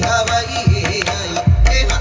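Live Polynesian music: a low drum beating steadily under a singing voice, with held, wavering notes.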